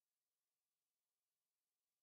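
Near silence: only a faint, even hiss.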